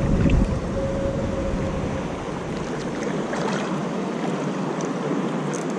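Wind blowing on the microphone over choppy seawater lapping, with a strong gust in the first half second.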